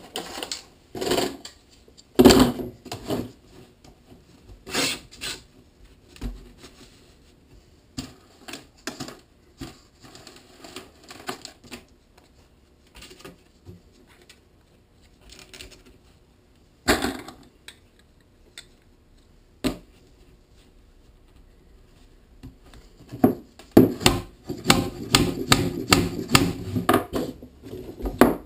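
White plastic pipe pieces, elbow fittings and hammock fabric handled on a wooden workbench while a cat-perch frame is assembled: scattered knocks and clacks, with a busier run of clattering near the end.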